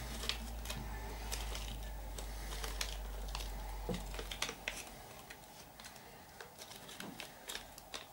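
Small kit parts being picked out of a clear plastic parts bag by hand: a string of light, irregular clicks and rustles.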